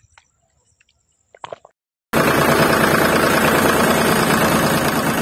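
A small battery-driven DC motor water pump starts abruptly about two seconds in and runs steadily with a fast, even buzz and rush. Before it, a few faint clicks and plops.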